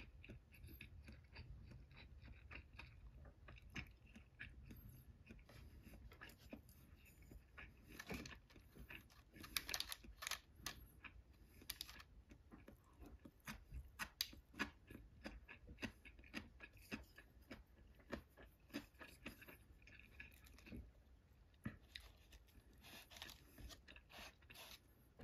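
Quiet close-up chewing and crunching of food, likely pickled vegetables, with light irregular clicks and crackles as wooden disposable chopsticks pick food from a wooden bento box.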